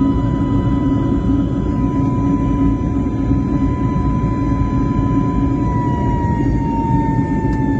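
Airliner engine and airflow noise heard inside the cabin: a steady loud rush with a high engine whine that slides slightly lower in pitch about six seconds in.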